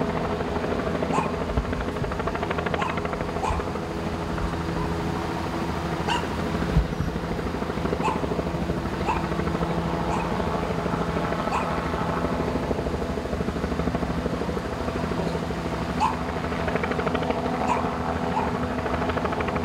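A steady engine hum, with short, sharp calls repeating irregularly about every second or so.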